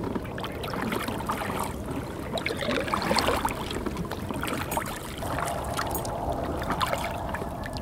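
Double-bladed kayak paddle stroking through lake water, each blade dipping with a splash and water trickling off it, with a low steady rumble underneath.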